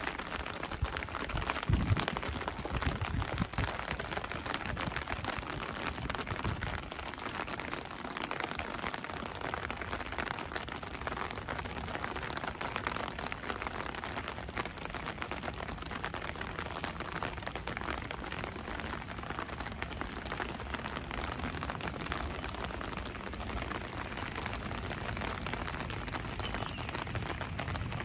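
Steady rain falling, a dense patter of small drop impacts hitting the ground and nearby surfaces. A few low thumps come in the first few seconds.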